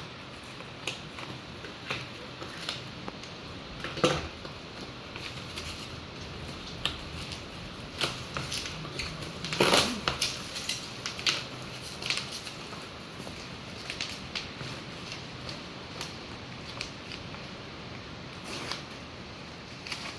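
A mailed package being opened by hand: scattered clicks and crinkles of cardboard and packaging, with a longer, louder rustle about ten seconds in.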